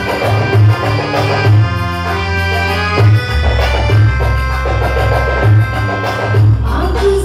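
Instrumental music with brass-like melody lines over a steady drum and bass beat, played on an arranger keyboard through the PA speakers as the intro before the singer comes in.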